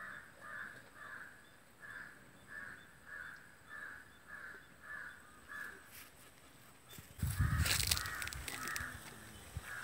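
A crow cawing over and over, a steady run of short harsh caws about one and a half a second. About seven seconds in, a loud rumbling, crackling noise comes in over the last few caws.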